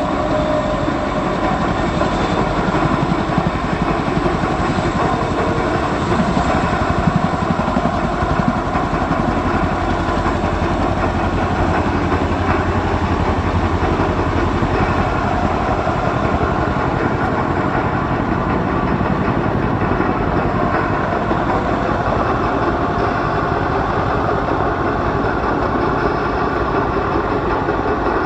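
Military helicopters, a CH-47 Chinook and UH-60 Black Hawks, flying close by: loud, continuous rotor chop over turbine noise.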